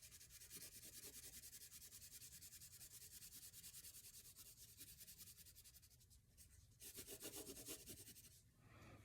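Faint, rapid back-and-forth scrubbing of a colouring tool on paper while filling in an area of a drawing, many short strokes a second, a little louder for a couple of seconds near the end.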